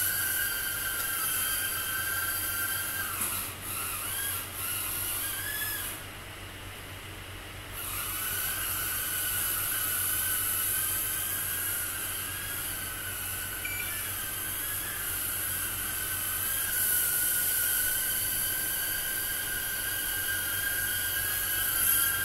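Tiny brushed-motor micro whoop drone whining in flight, the pitch wavering with the throttle. The whine drops away for about two seconds, then comes back. The drone is sluggish and won't climb, which the pilot puts down to a tired battery.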